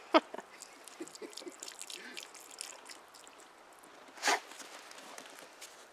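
A gray wolf shifting its paws in snow right by the microphone: faint crunching and rustling, with a sharp short noise right at the start and a louder, slightly longer one about four seconds in.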